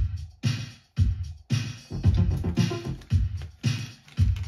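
Background music with a steady electronic beat, about two kicks a second.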